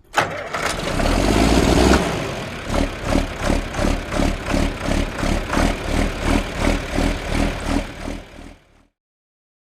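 Tractor diesel engine revving briefly, then running with a rhythmic pulsing of about two beats a second that fades out near the end.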